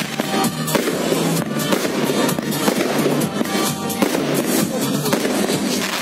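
Fireworks going off in rapid succession: a dense, continuous crackle of many small bangs with no pause.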